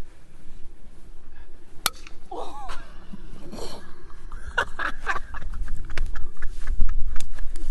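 Wind rumbling on a phone's microphone, with voices and bursts of laughter and a single sharp smack just under two seconds in. A heavier muffled rumble near the end comes from the phone rubbing against a coat.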